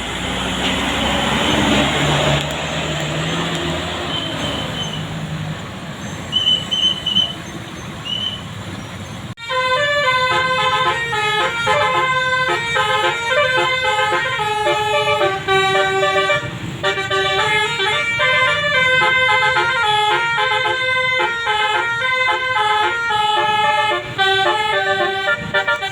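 A bus passing with its engine running amid road noise, then, about nine seconds in, a basuri melodic bus air horn (the 'telolet' horn) cuts in, playing a quick tune of stepped notes, several sounding at once.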